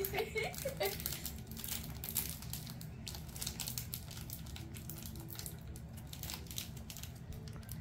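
Snack wrapper crinkling as fingers pick it open, crackly and dense at first, thinning out over the last few seconds.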